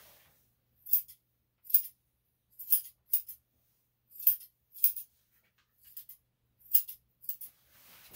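Grooming scissors snipping through dog hair: about nine short, sharp snips at an irregular pace, with no clipper running.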